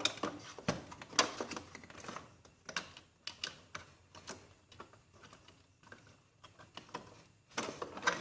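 Irregular plastic clicks and taps from hands working inside an Epson L360 printer, fitting the new power supply board and its cable connector. The clicks are loudest and most frequent in the first few seconds, then thin out.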